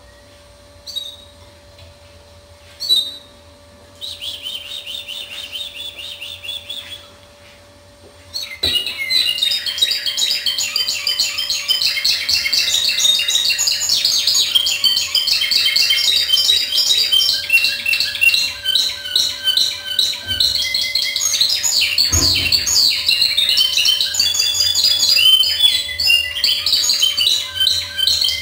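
Spanish timbrado canary singing in its cage: a few short notes and a brief trill about four seconds in, then, from about nine seconds in, a long unbroken song of rapidly repeated notes, the broken, discontinuous kind of song (timbrado discontinuo).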